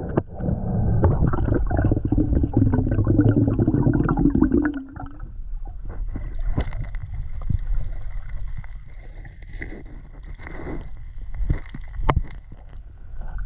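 Underwater sound around a diver metal detecting: for about five seconds a loud bubbling rumble, then a quieter stretch with a steady high tone and scattered clicks and knocks.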